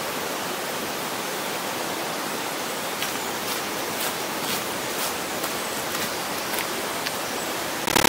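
Grey Mare's Tail waterfall, about 60 m tall, plunging: a steady, even rush of falling water, with a few faint clicks over it in the middle seconds.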